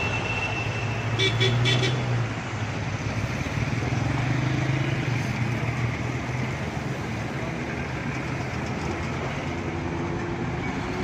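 Heavy diesel engines running with road traffic noise, the engine note swelling twice. About a second in, a vehicle horn gives a few quick toots.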